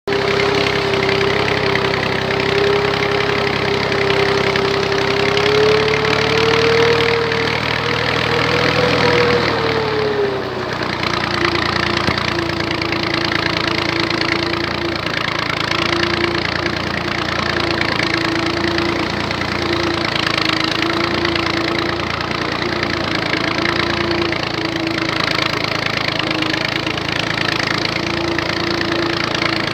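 1985 Massey Ferguson tractor's diesel engine running. Its pitch rises a little, then drops about ten seconds in, and it settles to a steady idle.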